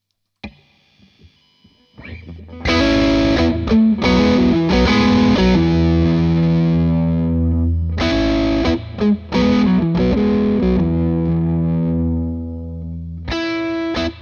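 Overdriven semi-hollow ES-335-style electric guitar played through a Brunetti Single Man amp: a few faint picked notes, then loud distorted chords struck about two seconds in and left to ring. A new phrase is struck about eight seconds in and fades away, and a fresh chord hits just before the end.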